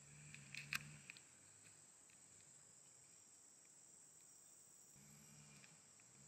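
Near silence: faint outdoor background with a faint low hum and a few soft ticks in the first second.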